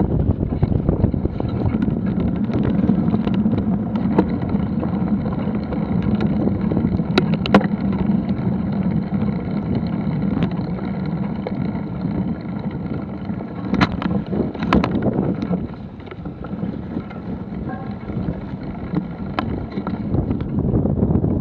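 Bicycle ridden over dirt woodland trails: a steady rumble of tyres on the ground and wind on the action camera's microphone, with a few sharp knocks and rattles from the bike over bumps, the loudest two close together about two-thirds of the way through.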